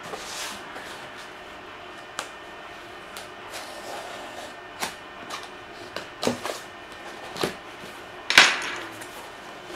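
A cardboard product box being opened and handled by hand: a brief rustle, then scattered sharp taps and knocks, the loudest about eight seconds in.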